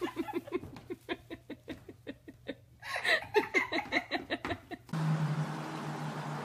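A person laughing hard in quick repeated giggles, about four or five a second, with a louder burst of laughter about three seconds in. About five seconds in, it cuts off suddenly to a steady hiss with a low hum.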